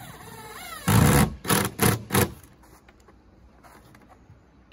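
Cordless driver driving a screw into a 2x4 wood board: the motor spins up with a rising whine, then a loud burst and three shorter bursts as the screw is driven home in pulses.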